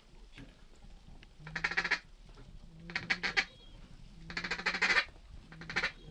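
Four loud, raspy duck quacks, each a short buzzy burst, coming about every one and a half seconds.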